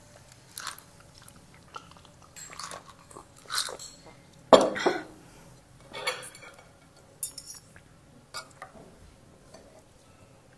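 Sips and swallows from a glass of soda, a loud short vocal burst from the drinker about halfway through, then a spoon and fork clinking against a plate.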